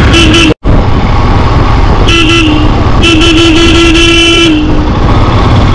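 Vehicle horn honking over the steady rumble of a motorcycle ridden through traffic: a short toot, another short toot about two seconds in, then a longer blast of about a second and a half. The sound drops out for an instant just after the first toot.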